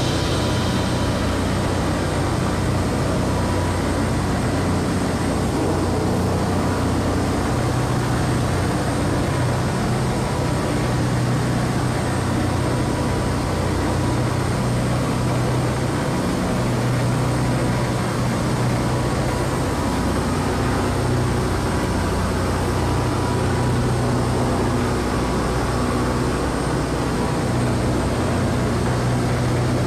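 A boat's engine running steadily, a constant low drone that does not change.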